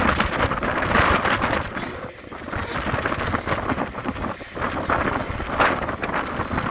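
Loaded log wagons of a freight train rolling past, wheels running on the rails, with gusts of wind buffeting the microphone.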